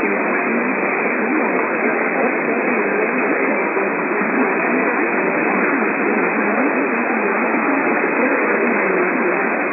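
Steady, even radio static hiss with no voice or tone in it, thin as if heard through a radio receiver: an open channel with nothing being broadcast.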